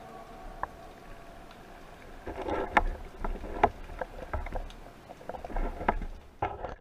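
Underwater sounds recorded through a diving camera: a watery rustle with a series of irregular sharp knocks and clicks as the speargun and fish stringer are handled, after soft background music fades out in the first second. The sound cuts off abruptly at the end.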